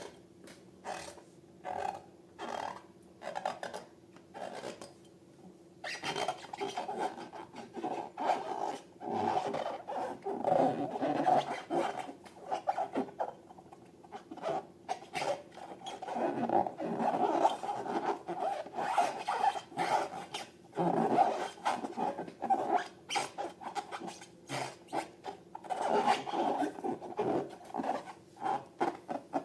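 Rubber balloons being rubbed and squeezed by hand, giving short irregular squeaky rubbing bursts. They are sparse at first and come thick and almost continuous from about six seconds in.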